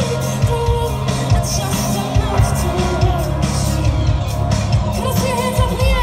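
Live band performing: a woman singing over drums and a heavy bass line. The band stops just at the end.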